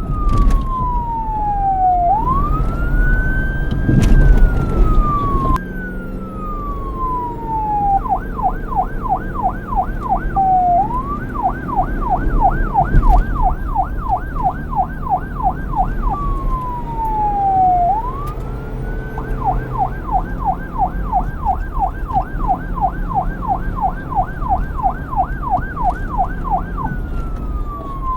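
Police car's electronic siren, alternating between a slow wail that falls and rises between a high and a low pitch, and a fast yelp of about four sweeps a second. It wails for about the first eight seconds, then yelps, with two more single wails dropped in between the yelp stretches. A steady low rumble runs underneath.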